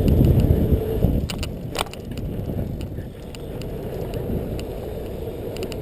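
A BMX bike riding over a packed dirt track: a low, rumbling crunch of tyres on dirt. It is louder for the first two seconds and then eases, with a few sharp clicks about a second and a half in.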